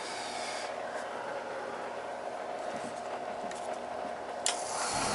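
Oil burner on a boiler starting up after a control replacement: a steady motor hum, then about four and a half seconds in a click, followed by a much louder steady rushing sound as the burner fires.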